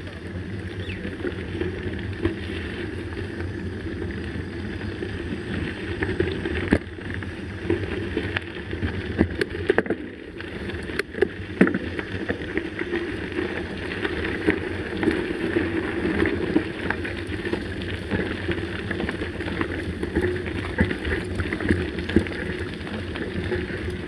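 Mountain bike rolling on a gravel dirt road: a steady rumble of tyres on loose stones and the frame rattling, with sharp clicks and knocks from stones and bumps, most of them around the middle.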